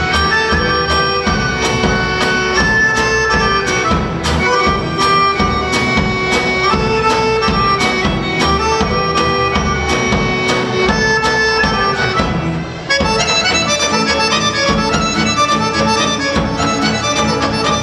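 Serbian folk dance music from the Pirot region, a lively melody over a steady beat; it dips briefly about twelve seconds in and carries on with a new, busier section.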